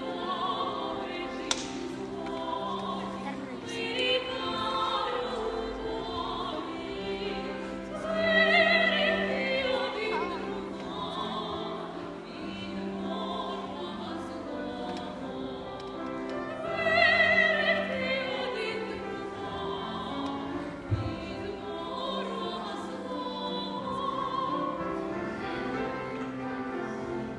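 Operatic singing with musical accompaniment, in long held notes that swell loudest twice, about eight seconds in and again around seventeen seconds.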